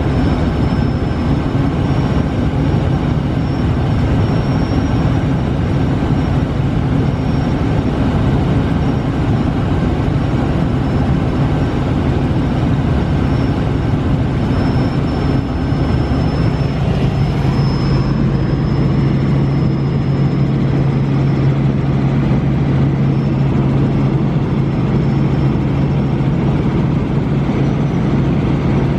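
Light piston helicopter in cruise flight, heard from inside the cabin: a steady loud drone of engine and rotors with a thin high whine over it. About two-thirds of the way through the low hum becomes stronger and steadier and the hiss above it dulls.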